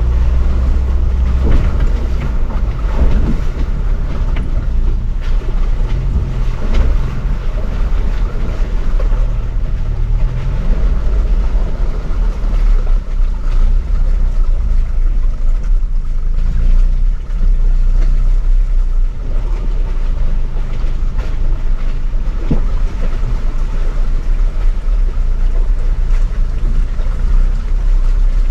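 Off-road 4x4 engine running steadily at low speed with a heavy low rumble.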